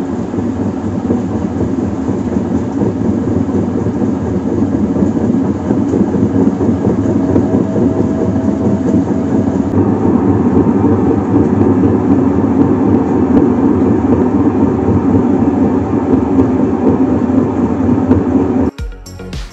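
Steady, loud mechanical rumbling from a running machine. It shifts slightly in character about ten seconds in and cuts off suddenly near the end.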